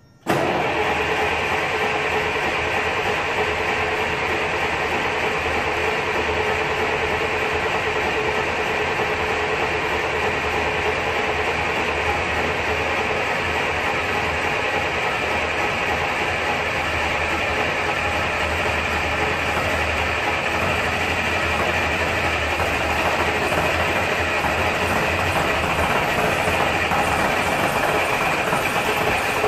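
Leyland National bus's diesel engine on a cold start: it comes in suddenly just after the start and then runs steadily and loudly, throwing out heavy exhaust smoke while cold.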